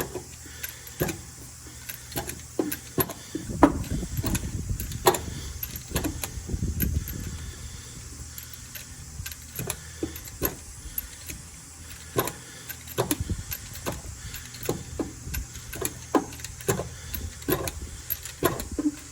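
Irregular clicks and knocks of hand tools and parts being handled during spark plug work on a small van's engine. A low rumble of handling comes about four to seven seconds in.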